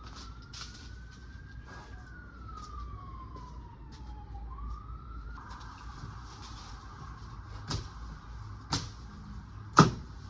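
Faint emergency-vehicle siren wailing, its pitch slowly rising, falling and rising again before holding steady. Three sharp knocks near the end, the last one the loudest.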